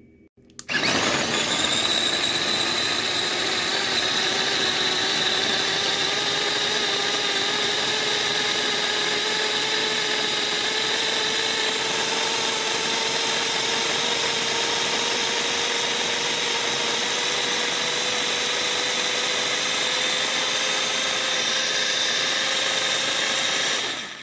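Electric mini food chopper running, chopping shallots, garlic and red chillies into a paste. The motor starts about a second in, runs steadily with its pitch creeping slowly upward, and stops near the end.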